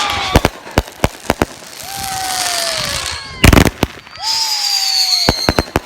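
Consumer fireworks going off: sharp bangs with crackling hiss and several falling whistles, and one very loud bang about halfway through.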